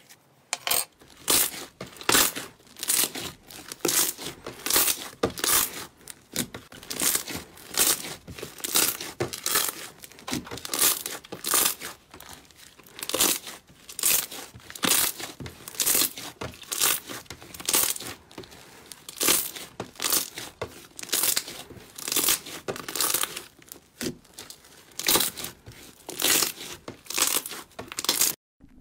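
Green slime stretched, pulled apart and squeezed by hand, giving short sharp crackling tears about two a second.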